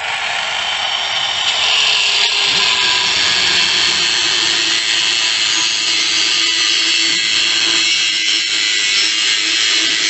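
Electric angle grinder with a cutting disc running against the metal of a motorcycle exhaust silencer: a steady motor whine with a hissing rasp of disc on metal, louder from about a second and a half in as the cut bites, to open the silencer and take out the catalytic converter.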